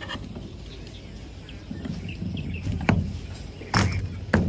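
Camping cot's frame and folding legs being handled and locked into place: shuffling and rattling of the frame, then three sharp clicks or knocks in the last second and a half.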